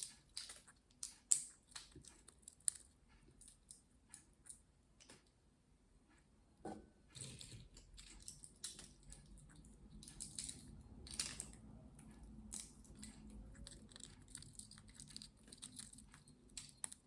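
Green-cheeked conure picking at and chewing walnut meat with its beak: irregular small clicks and crunches. A faint low hum joins about seven seconds in.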